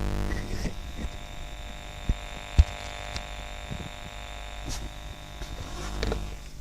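Steady electrical hum from a FrSky Horus X12S radio transmitter's speaker, made of many even overtones. It is interference picked up from the fitted TBS Crossfire module's antenna. Two light clicks come about two seconds in.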